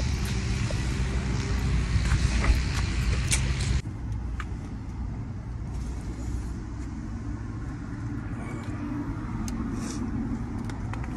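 Steady low rumble of a motor vehicle running, with a hiss over it that cuts off suddenly about four seconds in; after that the rumble goes on quieter, with a few faint clicks.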